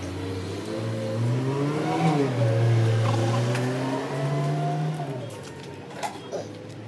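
An engine revving up, holding a raised speed, then easing off, followed near the end by two short sharp clicks.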